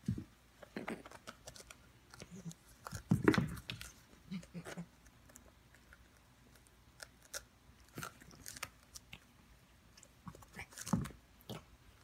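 Cat biting and chewing a tennis ball: irregular soft crunches, scuffs and bumps, loudest about three seconds in and again near the end.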